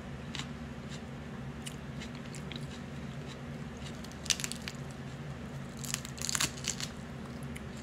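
Cooked crab-leg shell being cracked and snapped apart by hand, a few small cracks, a sharp snap about four seconds in and a louder run of crunchy cracks a couple of seconds later, over a steady low hum.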